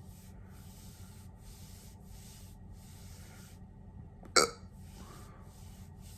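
A single sharp, loud hiccup about four seconds in, among soft hissing sounds that come about once a second.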